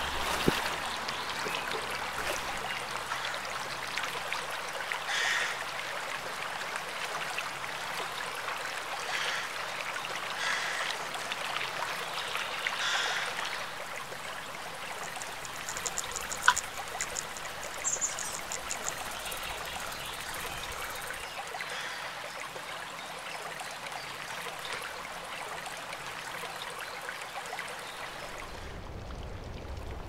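Running river water, a steady hiss with a few soft swells, a single sharp click about halfway through and a brief rapid high ticking around it. Near the end the hiss drops away to a duller, lower sound.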